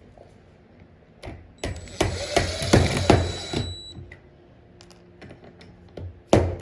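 Hammer striking a nail into wood: a quick run of light, uneven blows over about two seconds, then one more sharp blow near the end.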